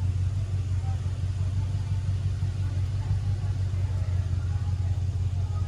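A car's engine running with a steady low rumble.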